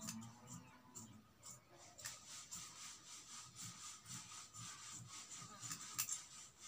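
Scissors snipping through fabric, a faint run of short cuts at about two a second.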